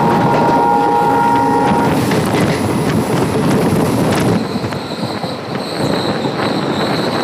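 Diesel-hauled passenger train (WDP4D locomotive) running along the track, heard from an open coach door: a loud steady rumble and rattle with rail clicks. A steady two-note tone sounds until about two seconds in. About four and a half seconds in the noise eases and a steady high whine sets in as the train comes into the station.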